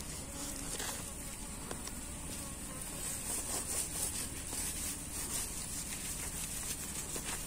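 Asian honeybees (Apis cerana) buzzing steadily in numbers around an opened hive frame, a disturbed colony whose comb is being cut. The buzzing swells a little a few seconds in.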